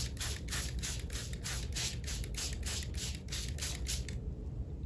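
Plastic trigger spray bottle misting water onto paper in quick repeated squeezes, a short hiss with each pump about four to five times a second, stopping shortly before the end.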